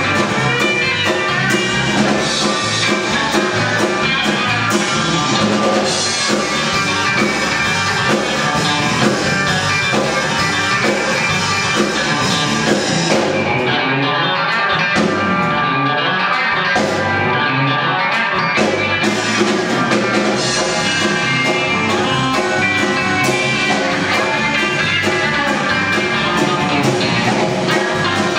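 A live rock band playing: electric guitar, bass guitar and drum kit. About halfway through, the cymbals and low end drop away for a few seconds before the full band comes back.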